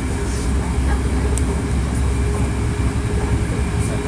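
Hankyu 1300 series electric train running at steady speed, heard from inside the car: a continuous low rumble with a steady, level whine and a few faint clicks from the wheels and track.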